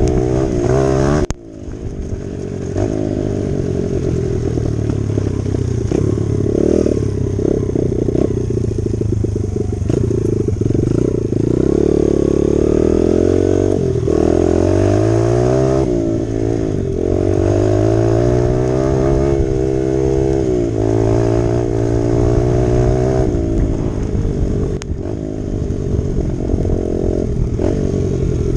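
Dirt bike engine running under riding load, its pitch rising and falling again and again as the throttle is opened and closed and the gears change. The sound cuts out briefly about a second in.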